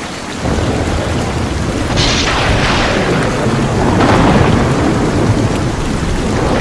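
Thunderstorm: steady rain with a low rumble of thunder, and two louder thunderclaps about two and four seconds in.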